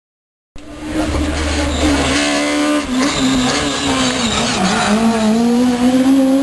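Rally car engine at high revs, its pitch wavering, dipping briefly past the middle and then climbing steadily as it accelerates. It starts abruptly about half a second in, after silence.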